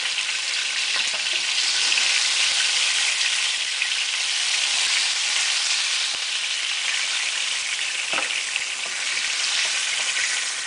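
Hot oil sizzling steadily in a frying pan around lightly floured catfish pieces being shallow-fried.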